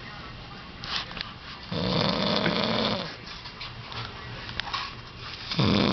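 A drunk man snoring heavily: a loud snore about two seconds in lasting over a second, quieter breathing between, and another loud snore starting near the end.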